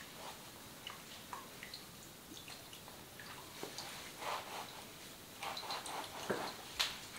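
A towel being worked over wet hair at a shampoo basin: soft rubbing, scattered drips and small clicks, with the sharpest click near the end.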